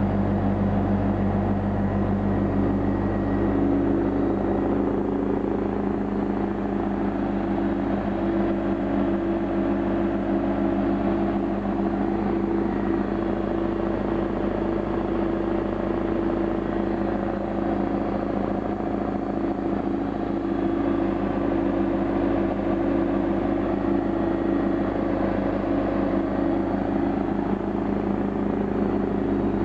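Air compressor running steadily with an even, unchanging hum.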